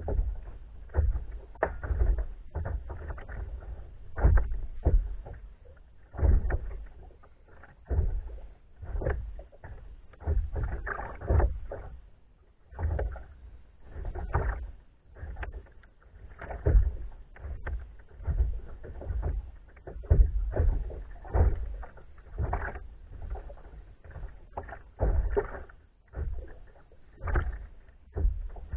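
Water splashing and sloshing around a small boat in irregular bursts, about one or two a second, each with a heavy low rumble.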